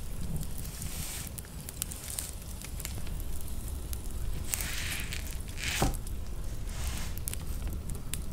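Spatula scooping thick chocolate mousse from a stainless steel mixing bowl and spreading it over a chocolate cake: a few soft, wet swishes and scrapes, with a light knock about two-thirds of the way through.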